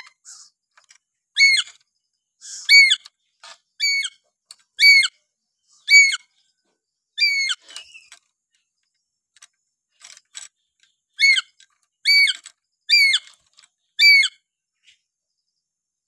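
A pet lory, the Papuan parrot called nuri paltem, giving a string of loud, short whistled notes, each a quick swooping pitch, about one a second. The notes pause for a few seconds midway, then start again.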